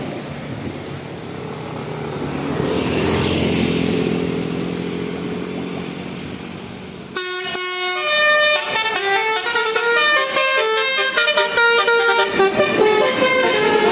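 A large vehicle passes with rising then fading engine noise. About seven seconds in, a bus's telolet basuri musical horn suddenly starts playing a quick tune of short stepping horn notes.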